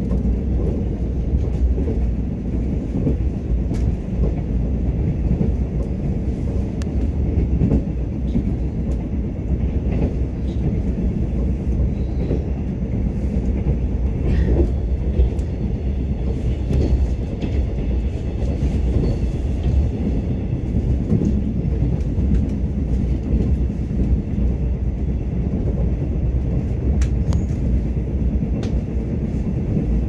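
Mugunghwa-ho passenger train running at speed: a steady low rumble of wheels on the track, with scattered light clicks.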